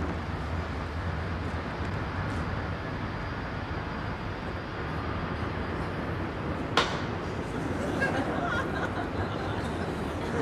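Steady low rumble of outdoor urban background with a hum, broken by a single sharp click about two-thirds of the way in.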